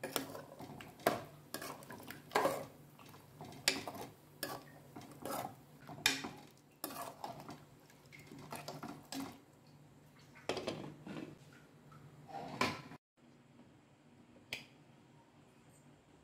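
Steel ladle clinking and scraping against the sides of an aluminium pressure cooker while stirring a thick vegetable kurma, in irregular strokes. The stirring stops about thirteen seconds in, and one more light click follows.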